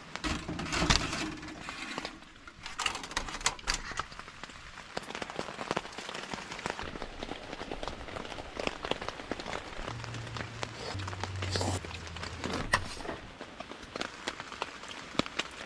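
Entrecôte steak sizzling and spitting in a portable oven set on a wood-burning stove: a steady hiss with many irregular crackles and pops.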